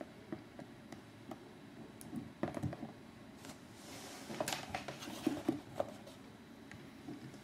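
Faint handling noises in a small room: a few light knocks and rustles as a smartphone is handled and set down, the busiest stretch about four and a half to six seconds in.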